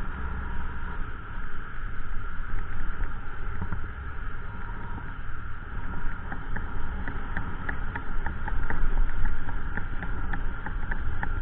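Motorcycle engine running as the bike climbs a rough dirt track, under a steady rumble, with a scatter of short sharp clicks, several a second, from about two and a half seconds in.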